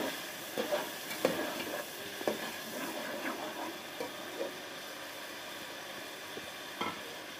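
Garlic-ginger paste and onions sizzling in hot oil in a pot, bhuna-style, while a spoon stirs and knocks against the pot. The knocks and scrapes stop about four and a half seconds in, leaving a steady sizzle.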